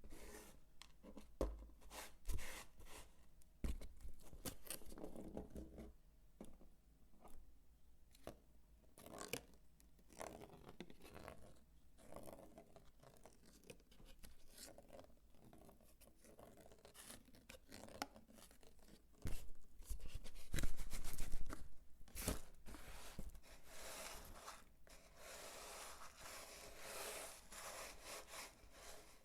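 Dry bar soap being handled close to the microphone: irregular crisp scrapes, crunches and clicks as it is cut and crumbled, with a louder, denser stretch of about three seconds past the middle and a steady rustle near the end.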